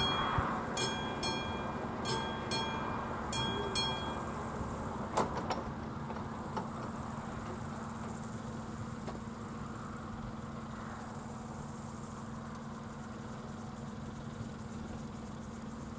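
Level-crossing warning bell on AŽD 71 crossing lights ringing in quick metallic strokes as the barriers lower; the bell stops about four seconds in. A single knock follows, then a steady low hum.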